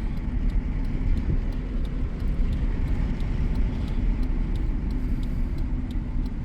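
Honda Civic engine running under way, heard from inside the cabin as a steady low rumble with a faint regular ticking about three times a second; the engine has a rod knock.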